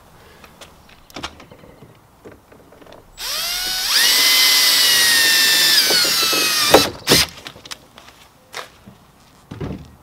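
Cordless drill spinning up with a rising whine about three seconds in, running steadily for nearly three seconds and then stopping, as it works on the screen-door handle mounting. A few light clicks and knocks of handling come before and after.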